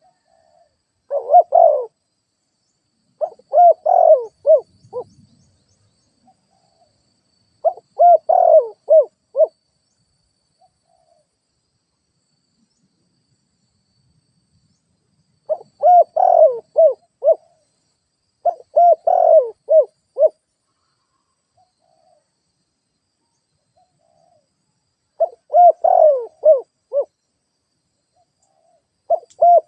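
Spotted dove cooing: repeated phrases of several throaty coo notes, each phrase lasting one to two seconds, separated by pauses of a few seconds, with the last phrase starting at the very end.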